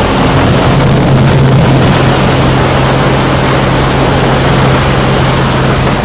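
Light aircraft's piston engine and propeller running steadily at a constant pitch, heard loud inside the cabin with a heavy rush of noise.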